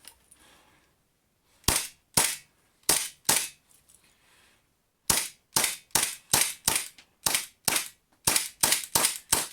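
WE Colt 1911 gas blowback airsoft pistol, mounted in a carbine kit, firing single shots: four sharp cracks, a pause of over a second, then a quicker string of about a dozen.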